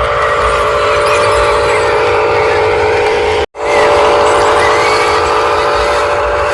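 Small electric motors and gearboxes of toy RC construction vehicles whirring steadily with a high buzzing tone; the sound cuts out for an instant about halfway through, then carries on.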